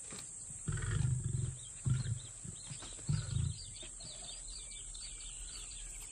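Deep, pulsing animal grunts in three bouts, then faint bird chirps.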